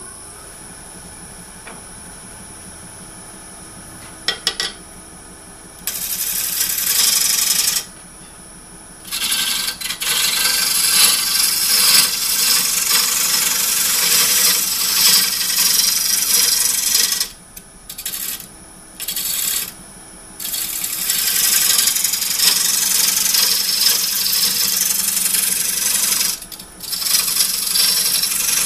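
Square carbide cutter shearing the outside of a large spinning bowl blank on a Jet 1642 wood lathe, smoothing the roughed-out surface: a run of loud scraping cuts, some brief and some several seconds long, with short pauses between. The lathe runs steadily underneath, and a few light clicks come just before the first cut.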